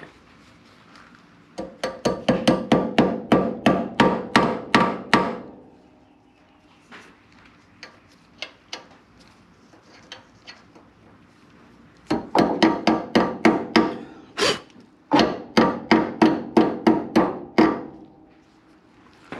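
Hammer striking a steel door hinge, driving in a new hinge pin and bushings. There are three quick runs of blows, about three or four a second, each ringing, with a few lighter taps in the pauses.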